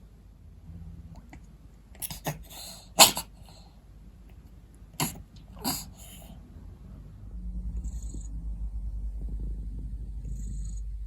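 A brown tabby cat's congested nose giving five sharp, sneeze-like snorts a few seconds in, the third the loudest. About seven seconds in, a steady low rumble with a fast flutter sets in. The noisy nasal breathing is, in the owner's view, from the shape of the nose or a cat flu that was never fully cleared.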